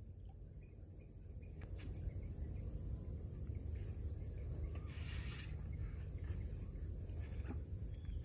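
Quiet rural outdoor ambience: a steady low rumble under a steady thin high-pitched drone, with a brief soft hiss about five seconds in.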